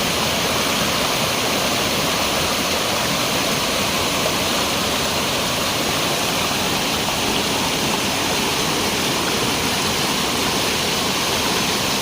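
Waterfall with water rushing and splashing in a steady, loud hiss, without let-up.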